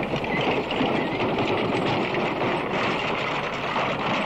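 Horse-drawn wooden wagon rolling along, its wheels and frame rattling steadily, with horses' hooves.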